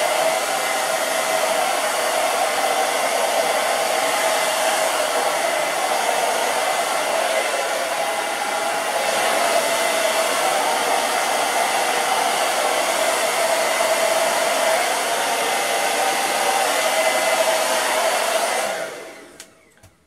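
Hand-held hair dryer blowing steadily, a rushing of air with a steady motor hum, used to push wet acrylic paint across the canvas. It is switched off near the end and dies away over about a second.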